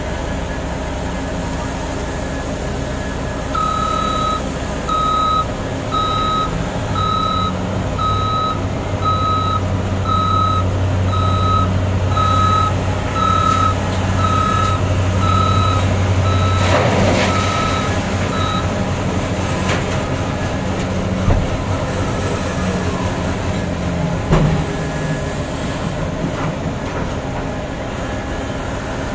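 Heavy mining haul truck's reversing alarm beeping roughly once a second over the deep, steady rumble of big diesel engines as the truck backs in under a Komatsu mining excavator. A bit past halfway a bucketload of rock pours into the truck bed with a rushing crash, and two sharp knocks follow later.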